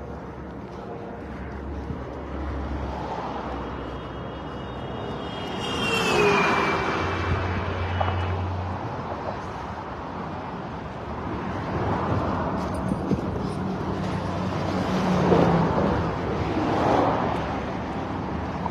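Road traffic: vehicles running and passing by, swelling and fading several times, with a short falling whine from a passing vehicle about six seconds in.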